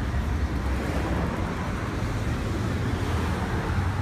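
Street traffic: cars driving past on the road, a steady rumble of roadway noise.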